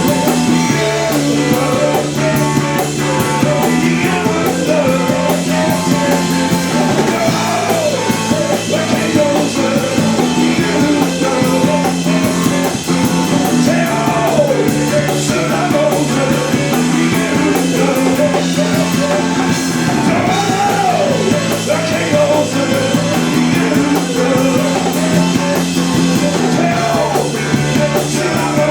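Rock band playing live, with singing over bass and guitar; the music runs loud and steady throughout.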